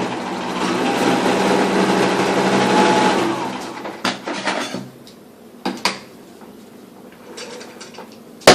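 A 1970s Sears Kenmore 1813 zigzag sewing machine sewing a straight stitch, running steadily for about three and a half seconds and then slowing to a stop. A few short clicks and knocks follow, and a sharp, loud click comes near the end.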